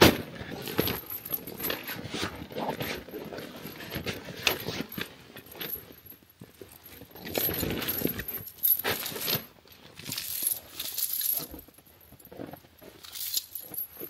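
Steel tyre snow chains clinking and jangling as they are pulled from their bag and untangled by hand, in irregular clusters of metallic clicks, with one sharp clink right at the start.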